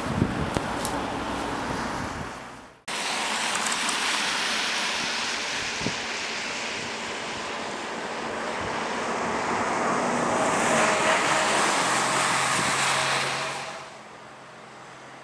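Strong wind rushing outdoors as a steady hiss. It breaks off abruptly a few seconds in, comes back, swells to its loudest about two-thirds of the way through, then drops sharply to a lower hum near the end.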